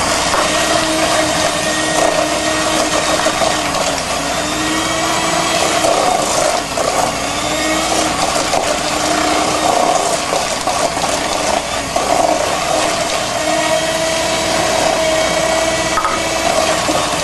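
Electric hand mixer running steadily, its two wire beaters whisking an egg into creamed butter and sugar in a stainless steel bowl, with the beaters rattling against the steel. The motor's pitch dips slightly now and then as the batter loads it.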